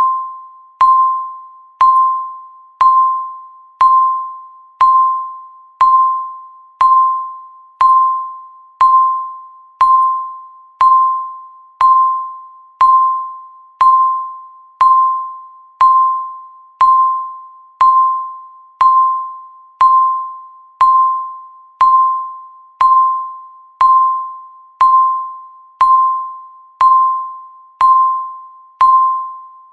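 Countdown timer's electronic beep sounding once every second, marking each passing second. Each beep is a single mid-pitched tone that starts sharply and fades away before the next.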